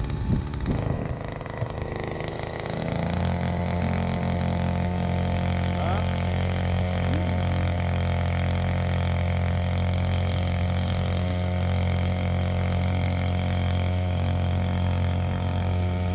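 Small outboard motor on a kayak running; about three seconds in it is throttled up and settles into a steady, even run as the kayak gets under way.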